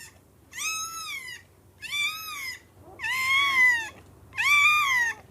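A newborn Great Dane puppy screaming in four separate cries, each about a second long and rising then falling in pitch. She wants to nurse but has not yet learned to latch.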